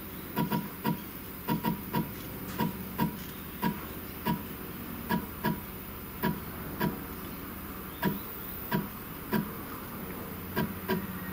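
About twenty short ticks at uneven spacing, one or two a second, as the CNC router's Z axis is jogged down one small step at a time. The spindle is being lowered onto a slip of paper to find the new tool's zero.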